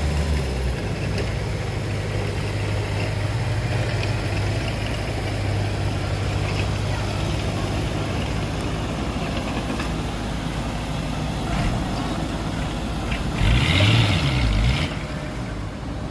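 Heavy diesel engine running steadily. About thirteen seconds in it gets louder for a second or two: the engine's pitch dips and rises, together with a hiss.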